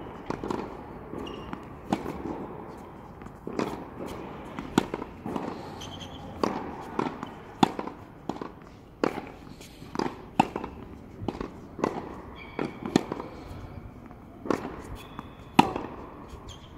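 Tennis rally: sharp pops of racket strings striking the ball, mixed with the ball bouncing on the hard court, irregular and roughly one to two a second.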